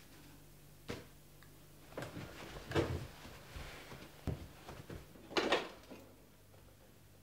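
Scattered knocks and handling noises as a person moves to a portable CD boombox. The loudest clack comes about five and a half seconds in, as the boombox's top-loading CD lid is opened.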